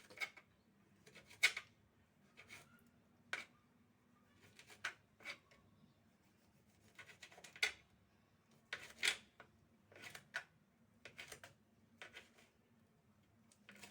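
Knife cutting an orange with its peel into small pieces: short, sharp knocks and cuts at irregular intervals, about a dozen or more.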